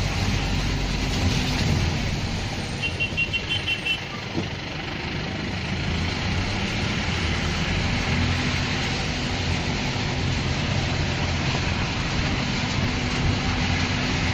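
Steady rain noise mixed with a vehicle engine's low, steady hum. About three seconds in comes a rapid string of short high beeps lasting about a second.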